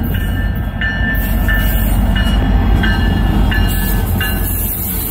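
Norfolk Southern diesel locomotive passing close by at the head of a freight train, its engine and wheels making a loud, steady low rumble. Short high-pitched squeals come and go several times over it.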